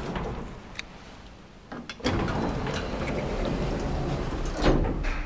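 1984 Schindler lift's side-opening car doors sliding shut. The door operator's rumble starts suddenly about two seconds in, and the doors meet with a thud near the end.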